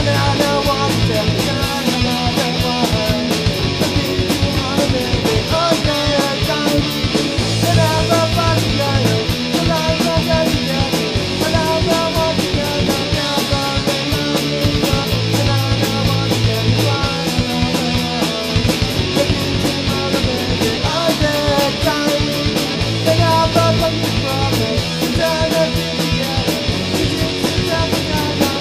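Punk rock song played by a full band: electric guitars, bass and fast, steady drums. The whole band comes in loud right at the start, after a strummed guitar passage.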